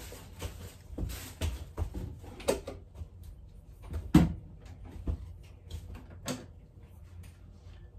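Metal crutches knocking and clattering as someone moves around a small kitchen on them, a series of irregular knocks and clicks with the loudest thump about four seconds in.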